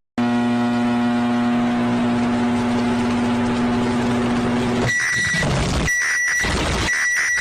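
Emergency alert alarm: a harsh, buzzy tone held on one low pitch for about five seconds. It then switches to a repeating signal about once a second, each cycle a high beep with a rushing noise followed by a low rumble.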